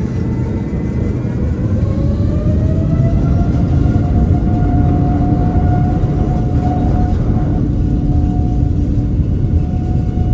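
Rolls-Royce Trent 7000 turbofans of an Airbus A330-900neo heard from inside the cabin, spooling up as thrust is set for takeoff: a whine rises in pitch over about two seconds, then holds steady over a deep, continuous rumble.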